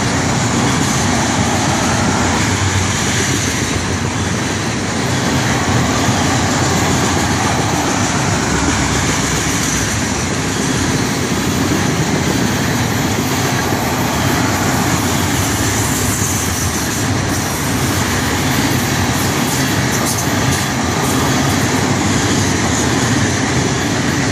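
Freight train tank cars rolling past close by: a steady, loud rumble and clatter of steel wheels on the rails.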